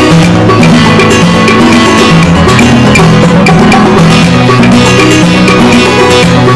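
Background music with a steady percussion beat and a bass line stepping from note to note.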